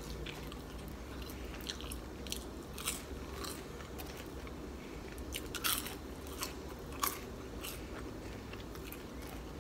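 A person chewing truffle French fries, with irregular crunches and wet mouth clicks, a few sharper ones past the middle.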